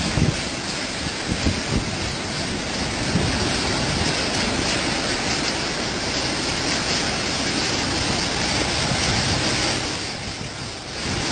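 Storm wind buffeting the microphone in gusts over a steady hiss of heavy rain and rushing floodwater. The noise eases briefly near the end.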